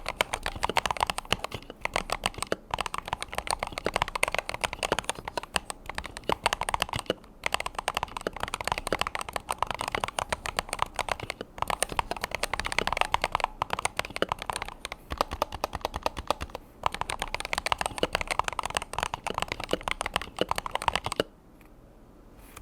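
Fast, continuous typing on a Razer Huntsman V3 Pro TKL 8K keyboard with analog optical switches: a dense stream of key clicks, broken by a few brief pauses. The typing stops about a second before the end.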